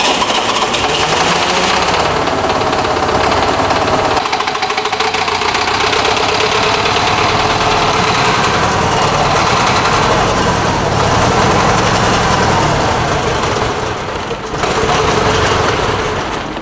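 ZIL-131 truck's freshly rebuilt V8 petrol engine running loudly just after being started, on its first run after the rebuild, with its bearings not yet run in. Its revs dip briefly about 14 seconds in and then pick up again.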